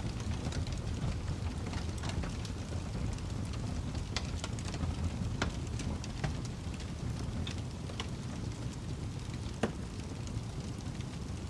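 Wood fire burning: a steady low rumble with scattered sharp crackles and pops from the burning logs.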